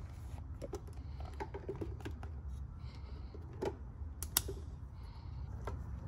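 Small plastic clicks from a handheld digital multimeter's rotary selector dial being turned through its detents and the test leads being handled, with two louder clicks around the middle, over a low steady hum.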